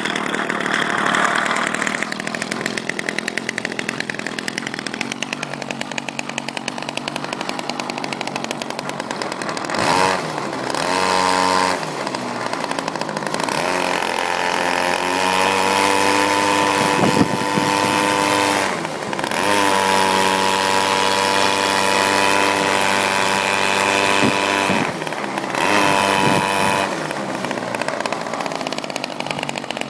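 Weed-whacker engine running on a test bench, revved up and down several times. It is held at high revs for long stretches in the middle, with brief drops in between, and runs at lower revs near the end.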